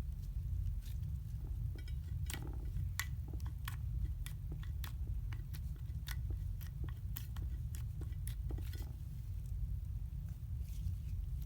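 Slime being worked, giving sharp, irregular clicks and pops, roughly two a second, over a steady low rumble.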